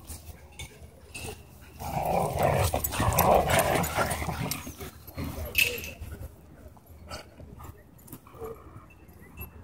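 Dogs growling during a rope tug-of-war game, with a loud rough spell lasting about two and a half seconds starting about two seconds in. A short sharp sound follows a little after five seconds.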